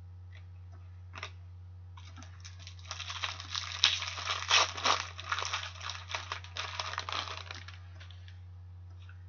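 Thin clear plastic card sleeve crinkling and rustling in the hands as a trading card is slid into it. The crinkling runs for about five seconds from about two seconds in, over a steady low hum.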